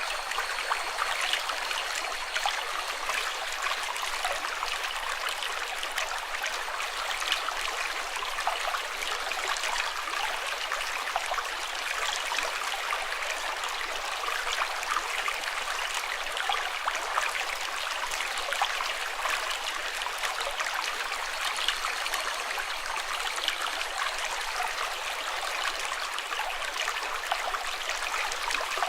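Running water, like a shallow stream, trickling and splashing steadily, with many small splashes and little low rumble.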